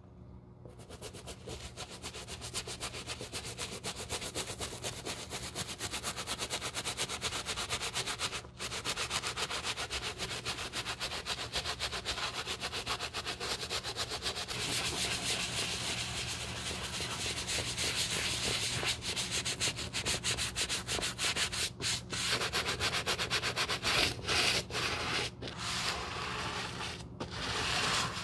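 Stiff-bristle brush scrubbing the rubber tread sole of a leather loafer with foaming cleaner: rapid, continuous scratchy back-and-forth strokes, with a brief pause about a third of the way in and a few short pauses near the end.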